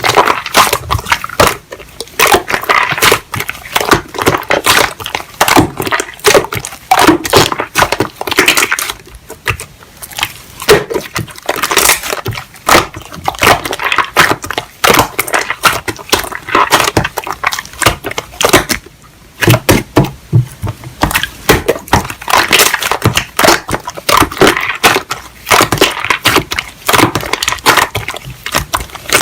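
Slime being squeezed, pressed and poked by hand, giving a dense run of small clicks and crackles in irregular clusters.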